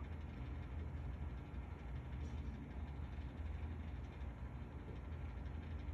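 Steady low hum with faint even background noise; nothing from the feeding stands out.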